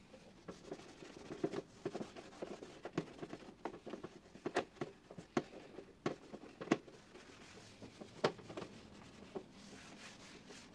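Rag being wiped by hand over a metal toolbox: soft rubbing with irregular light clicks and taps.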